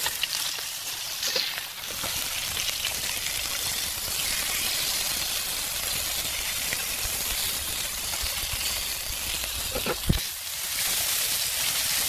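Hairtail fish pieces sizzling in hot oil in a nonstick frying pan, a steady hiss. A single dull thump about ten seconds in.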